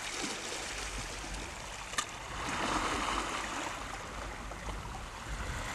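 Shallow sea water washing and lapping over rocky ledges as the tide rises, a steady wash that swells for a second or so about two and a half seconds in. A single sharp click comes about two seconds in.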